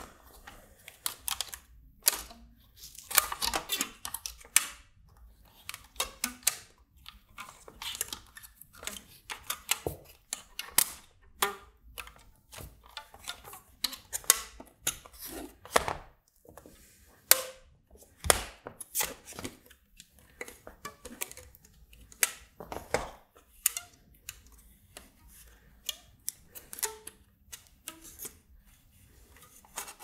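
Irregular clicks, taps and light knocks from handling a circuit board and acrylic front panel fitted with rows of toggle switches while rubber bands are stretched around them.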